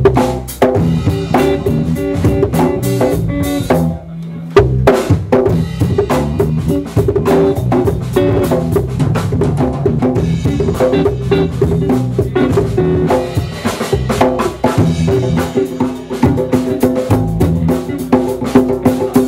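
Live band playing: a drum kit driving a steady beat with guitars. The low end drops out briefly about four seconds in, then the full band comes back in.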